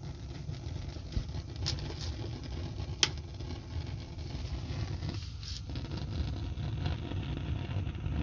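A steady low hum of a running motor, with a few sharp clicks, the loudest about three seconds in.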